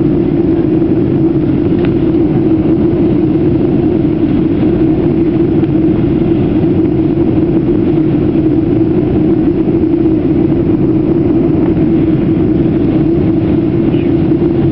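Steady cabin noise inside a jet airliner in flight: the drone of the engines and rushing air, with a steady low hum running through it.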